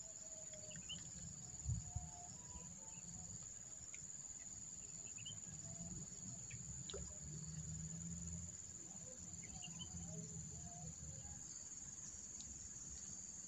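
Steady high-pitched drone of insects, with a low rumble underneath and a couple of soft knocks about two seconds in.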